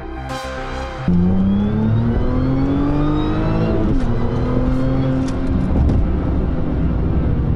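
Car engine accelerating hard, from the uploader's Audi A4: the note climbs steadily for about three seconds, drops suddenly at an upshift, then climbs again more slowly. Electronic music with a beat plays in the first second, then cuts off abruptly as the engine sound comes in.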